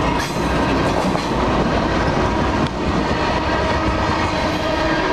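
A Canadian National diesel freight train passing close by. The locomotive goes past with a steady low rumble, then covered hopper cars roll by, with a couple of sharp clanks from the wheels and couplings.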